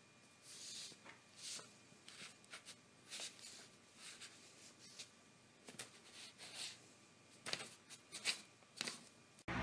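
Paper sheets rustling and scraping under a kitten's paws, in short, irregular, faint scratches.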